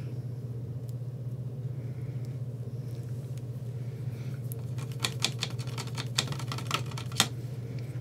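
Paintbrush dabbing paint onto a small stretched canvas: a run of quick, light taps starting about halfway through, over a steady low hum.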